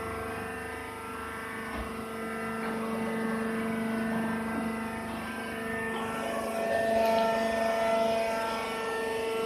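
Baler machinery running: a steady mechanical drone of several held tones, with a few higher tones joining about two-thirds of the way through.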